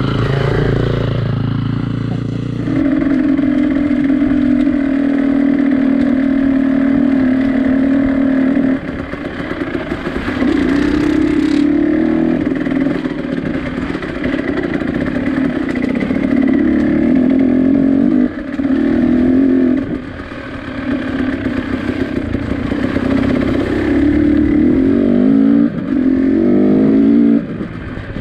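Vehicle engine under way, held at steady revs for long stretches with several drops in level as the throttle eases. Near the end it revs up twice in rising sweeps, each cut off sharply.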